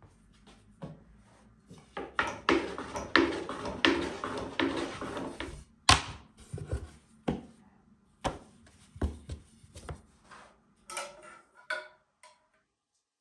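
Wooden rolling pin rolling dough across a floured wooden board: a busy run of rolling strokes and knocks, then single knocks of the pin on the board. Near the end a few ringing clinks of a metal spoon against an enamel pot.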